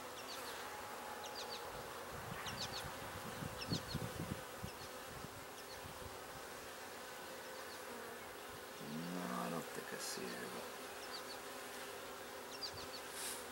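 Honeybees from an opened nuc hive buzzing steadily around a frame of comb lifted out for inspection. The buzz swells louder briefly about nine seconds in.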